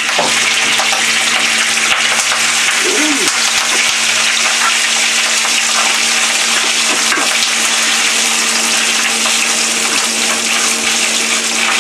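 A cold, hard block of cooked rice frying in hot grapeseed oil in a frying pan, a loud, even sizzle, with a faint steady hum underneath.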